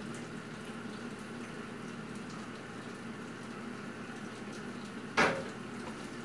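Kitchen tap running into a sink as dishes are washed, a steady rush of water. About five seconds in, one sharp knock rings out, the loudest sound.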